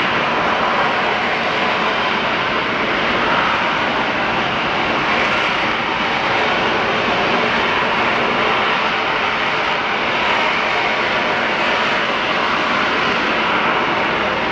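Loud, steady, unbroken rushing noise that does not change in level or pitch. Its source is unidentified.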